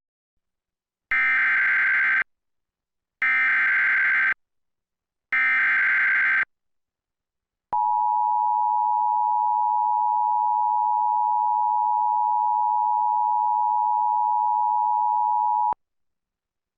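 Emergency Alert System activation for a severe thunderstorm warning. Three short bursts of SAME header data sound, each about a second long and a second apart. They are followed by the steady two-tone EAS attention signal, held for about eight seconds and then cut off suddenly.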